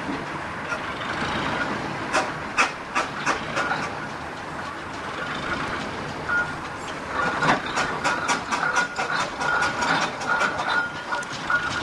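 Fowell steam traction engine moving slowly under its own steam, with sharp exhaust beats, a few scattered at first and then coming quickly from about seven seconds in, over steam hissing.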